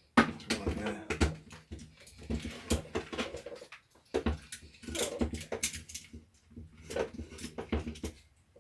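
Plastic drill housing and its internal parts knocking and rattling as they are handled and taken apart: a run of short clicks and clunks.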